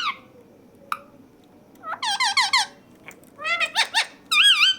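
Pet parrot giving squeaky, wavering calls in short runs: a quick string of about four notes about two seconds in, another string a little later, and a longer warbling call near the end.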